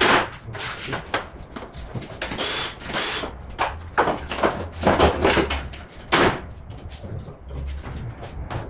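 Irregular metallic knocks and clanks of tools and parts as the underside of a car on a workshop lift is being taken apart. The loudest knocks come at the start, around the middle and about six seconds in.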